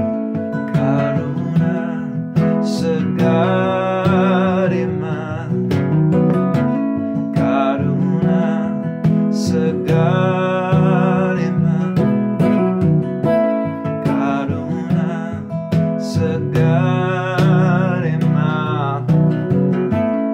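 A man's voice singing a devotional chant in drawn-out, wavering phrases over a steadily strummed acoustic guitar.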